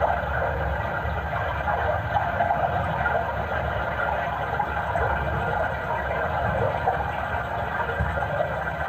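Steady rushing, gurgling water sound of a pot being filled at a stream, played as a stage sound effect.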